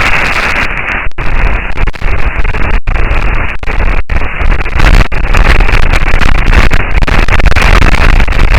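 Audio recording presented as sound on the surface of Mars: a loud, steady rushing noise, heavy in the bass, broken by a few brief dropouts.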